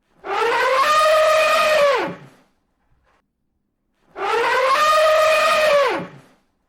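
Elephant trumpeting: the same call twice, each about two seconds long, rising in pitch, holding, then dropping sharply at the end, with near silence between the calls.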